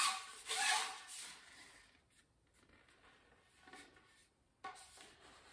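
Fishing pole section being handled and slid in the hands: two short rubbing scrapes in the first second, then quiet handling with a light knock near the end.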